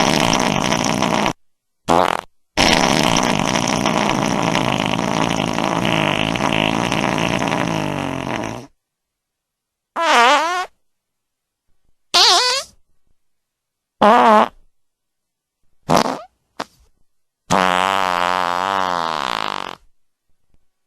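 A string of recorded fart sound effects with abrupt starts and stops and silence between them. A long one runs about six seconds, several short ones follow, and near the end comes a wavering one that slides in pitch.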